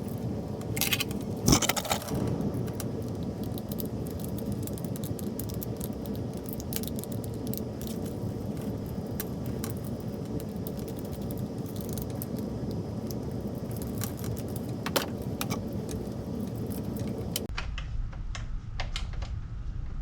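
Small metal tools and parts clinking and rattling over a steady hiss, with scattered sharp clicks. This is hand work on wiring in an electrical breaker panel, and the sound changes abruptly near the end.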